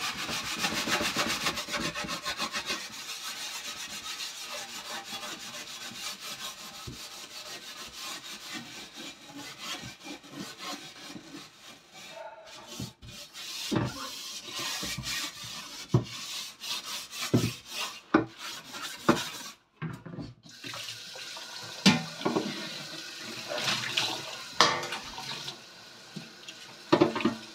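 Soap-filled scouring pad scrubbed rapidly back and forth over a black enamelled oven tray, a steady rasping rub. About halfway through it breaks up into scattered knocks and handling of the tray. Near the end, water runs from the tap as the tray is rinsed in the sink.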